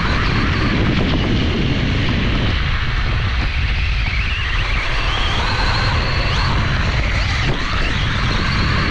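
Heavy wind buffeting on the onboard camera's microphone as a LOSI Promoto MX electric RC motocross bike rides over dirt and grass. The bike's electric motor whines faintly underneath, its pitch rising and falling with the throttle.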